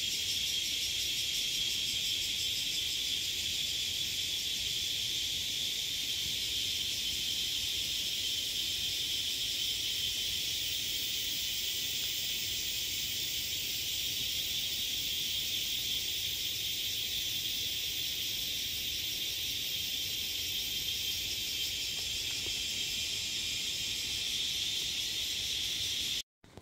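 A steady, dense, high-pitched chorus of forest insects, shrilling without a break. It cuts off suddenly near the end.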